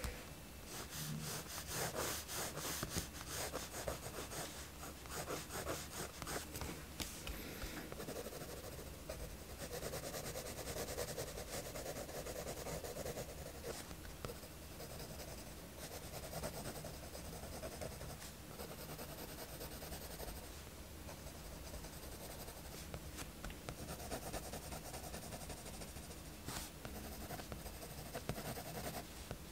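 Mechanical pencil scratching on sketchbook paper: quick short strokes for the first several seconds, then longer continuous shading strokes.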